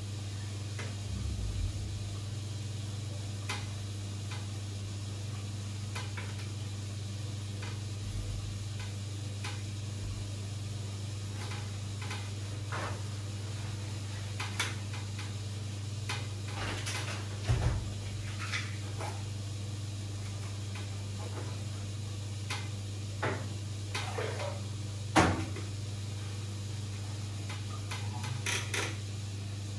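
A steady low hum under scattered light clicks and knocks, with a louder knock a little past halfway and the loudest about five seconds before the end.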